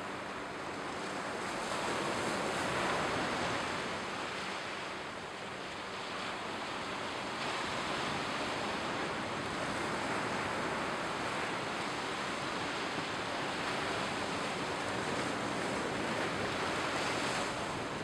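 Mediterranean Sea surf washing onto a sandy shore: a steady rush of waves that swells and eases in loudness every few seconds.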